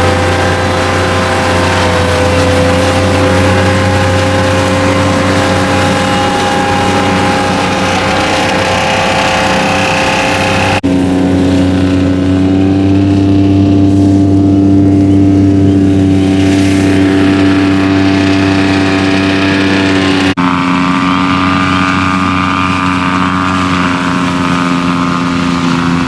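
Diesel engine of a Softrak tracked harvester running steadily at working speed while the machine cuts reed canary grass and blows it into its bin. The steady engine note changes abruptly twice, at about 11 and 20 seconds.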